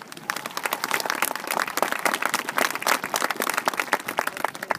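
Crowd applauding, a dense patter of many hands clapping that breaks out suddenly and keeps up.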